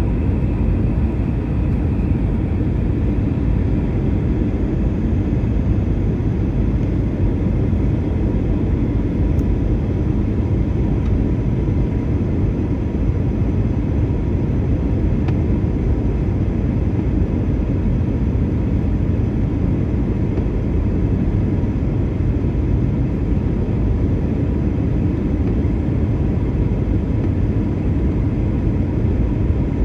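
Steady cabin noise of a jet airliner in flight: a low, even rush of engines and airflow with a faint steady tone above it.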